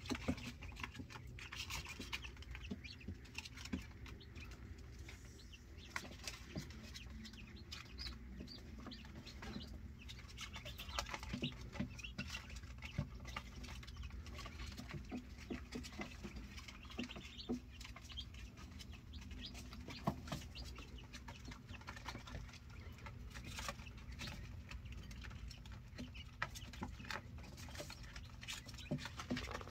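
Young quail in a wire cage giving short calls and peeps, with scattered quick taps and clicks as they peck at metal feed tins and move about. A steady low hum runs underneath.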